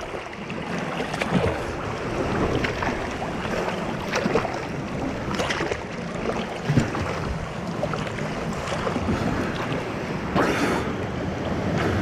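Seawater sloshing and splashing around an action camera held at the surface by a swimmer in choppy water: a continuous wash of water noise with irregular splashes, one of the louder ones about ten seconds in.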